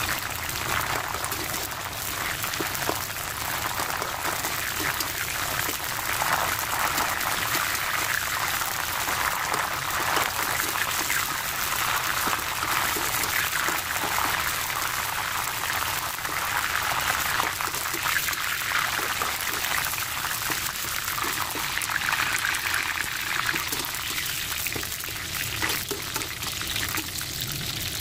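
Holy basil leaves frying in hot vegetable oil in a wok, a steady dense sizzle and crackle as the wet leaves fry toward crisp.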